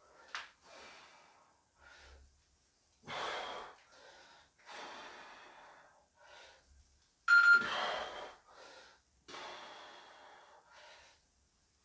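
A man breathing hard under exertion during a dive-bomber press-up set, in short forceful breaths every second or two. The loudest breath comes a little past halfway, with a brief whistle to it.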